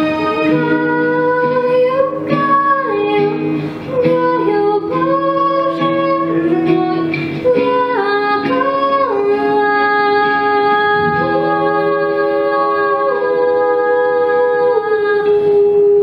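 Two young female voices singing a duet through microphones, their melody gliding between long held notes, over an amplified backing track of sustained instrumental chords.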